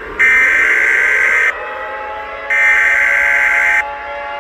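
Emergency Alert System SAME header data tones: two harsh, buzzy screeching bursts, each a little over a second long and about a second apart, over a fainter steady tone.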